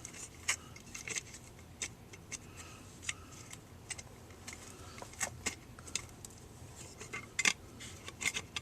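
Homemade plastic speaker adapter being handled and test-fitted, giving scattered light clicks and taps at irregular intervals, the sharpest about seven and a half seconds in.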